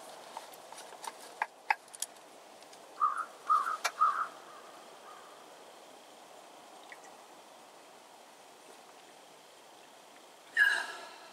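Small clicks and scrapes of a plastic military canteen being handled and opened, then three gulps of water about three seconds in. Near the end comes one short, loud, harsh call.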